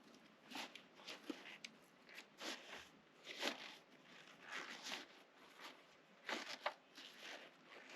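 Irregular rustling and scuffing with a few sharp clicks: camping gear being handled and packed up.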